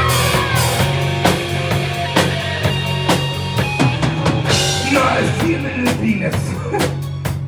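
Live rock band playing an instrumental passage: the drum kit keeps a steady beat with bass drum and snare over sustained bass notes, and a melodic line slides in pitch about five seconds in.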